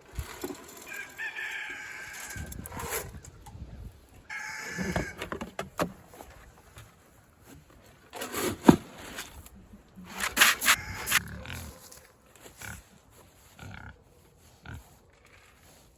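Farmyard chickens calling, with other livestock, over scattered knocks and clatter. The loudest of these are a sharp knock about halfway through and a cluster of them a couple of seconds later.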